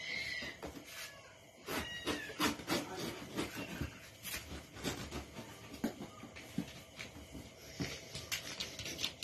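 Packing tape on a large cardboard box being cut and torn open by hand: an irregular run of rips, scrapes and cardboard knocks starting about two seconds in. A short high-pitched call sounds at the very start.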